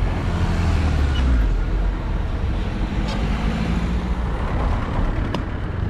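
A heavy engine running with a deep, steady rumble, with a couple of faint clicks.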